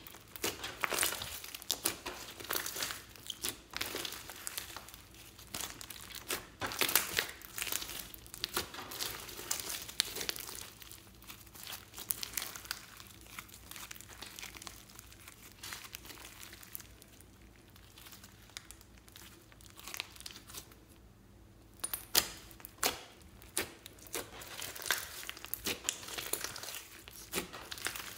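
Glittery slime mixed with beads and sequins being kneaded, squeezed and stretched by hand, giving irregular sticky crackles and clicks. The crackles thin out through the middle and come thicker again near the end.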